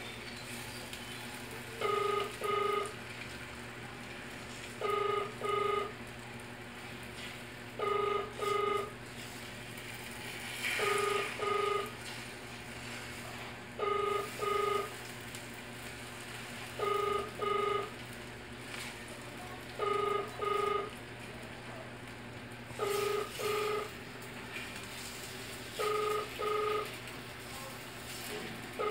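Electronic beeper sounding two short identical beeps about every three seconds, over a steady low hum.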